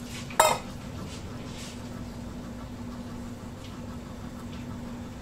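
A single sharp clank of kitchenware, a dish or utensil struck against a pot, with a brief ring, about half a second in. A steady low hum runs underneath.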